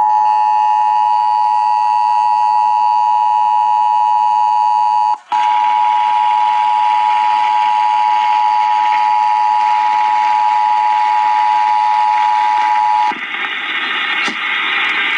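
Emergency Alert System attention signal: the broadcast two-tone alert (853 and 960 Hz sounded together), a loud steady dual tone. It cuts out for an instant about five seconds in and stops about thirteen seconds in, giving way to a hiss.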